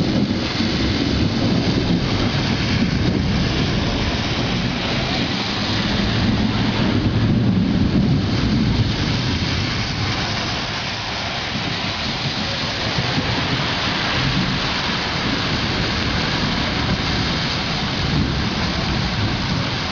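Heavy rain falling steadily in a thunderstorm, with a low rumble of thunder that swells and is strongest about seven to nine seconds in.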